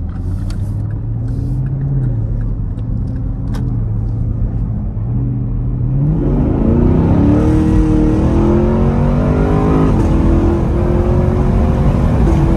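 2019 Camaro SS's 6.2-litre V8 with its exhaust valves open, heard from inside the cabin: rolling gently at first, then at full throttle from about six seconds in, rising in pitch, with the pitch dropping back twice as the ten-speed automatic shifts up.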